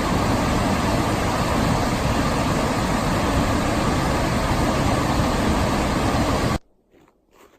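Waterfall roar of the Pigeon River's High Falls: a loud, steady rushing noise that cuts off suddenly near the end, leaving a few faint ticks.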